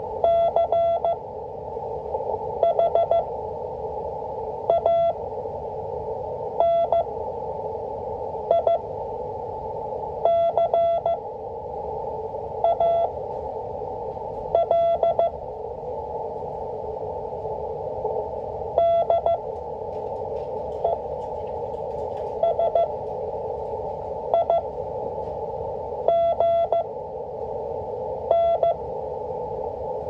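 Slow Morse code practice (W1AW, 5 words per minute) heard through an Icom IC-718 HF transceiver in CW mode: short groups of dots and dashes beeped at one steady pitch, one character about every two seconds. Under the beeps is a constant band of receiver hiss.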